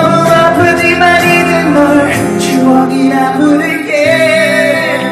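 Live music: a man sings a pop ballad into a microphone over instrumental accompaniment, holding long notes.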